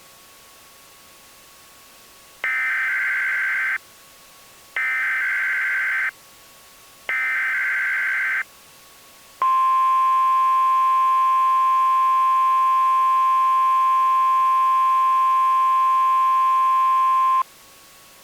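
Emergency Alert System SAME header: three short bursts of warbling digital data tones, about a second apart. They are followed by a loud, steady, single-pitched alert tone of about eight seconds, the NOAA Weather Radio 1050 Hz warning alarm tone that opens a warning message.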